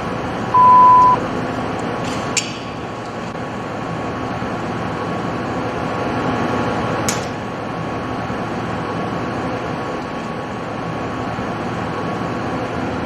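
Steady running noise of an automated pipe spool welding machine, with one short high electronic beep about half a second in and a couple of sharp clicks.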